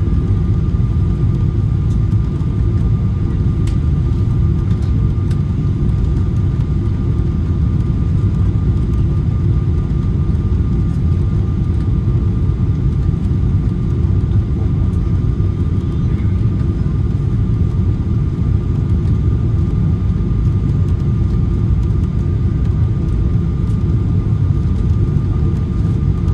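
Cabin noise inside a Boeing 777-300ER on approach: a steady deep rumble of airflow and its GE90 engines, with a thin, even whine above it.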